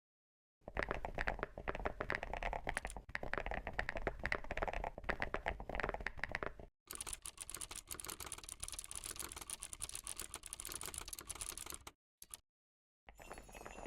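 Rapid, dense clicking and tapping in three spliced sections, each cut off abruptly by silence; the middle section is brighter and more hissy than the first.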